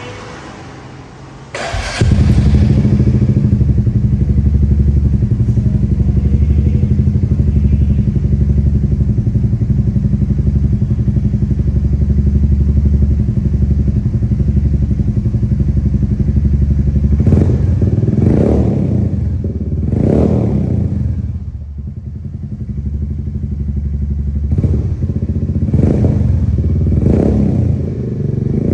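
Royal Enfield Meteor 350's single-cylinder engine is cold-started through an open Gursewak 'gun shot' exhaust with its dB killer removed. It catches about two seconds in and idles steadily. In the last third the throttle is blipped several times, each rev rising and falling back to idle.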